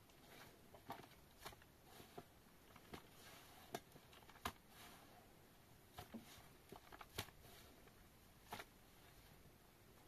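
Faint, irregular small clicks and taps, about fifteen scattered unevenly over a quiet background, a few of them sharper than the rest.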